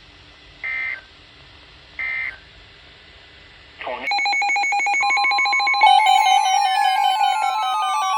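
Short bursts of digital data tones, two of the three end-of-message bursts that close a NOAA Weather Radio warning broadcast. About four seconds in a much louder electronic alert starts: a rapid pulsing beep at several pitches, joined about a second later by a steady high tone and then by falling whistling glides.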